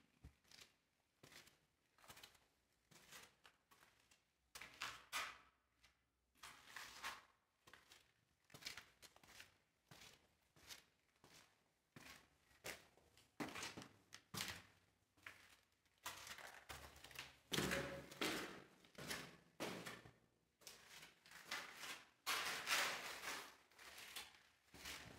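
Faint footsteps on a sand-strewn concrete floor, short scuffing knocks at an irregular walking pace of about one or two a second.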